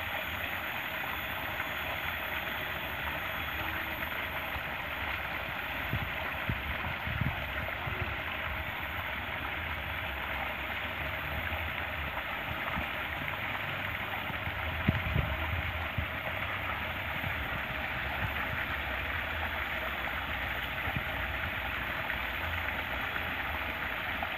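Water pouring steadily over a small concrete weir into a shallow stream, a constant rushing splash. A few low bumps break in, the loudest about halfway through.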